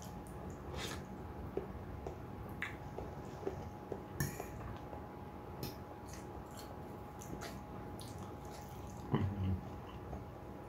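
Quiet eating sounds: a fork clicking now and then against a bowl of creamy instant noodles, with soft wet mouth sounds between the clicks. A short, louder low sound comes about nine seconds in.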